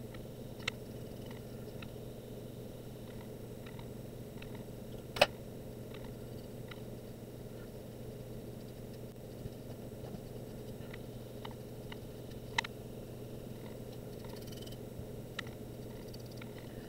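Steady low room hum with scattered faint taps and clicks from a paintbrush working on a wooden airplane model; one sharper click about five seconds in and another about twelve and a half seconds in.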